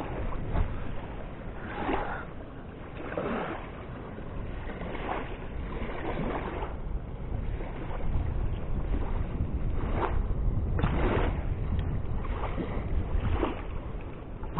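River water rushing with wind buffeting the microphone, and intermittent rustling as gear is handled close by.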